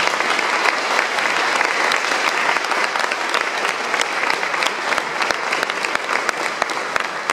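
Audience applauding, the clapping thinning out toward the end into more separate claps.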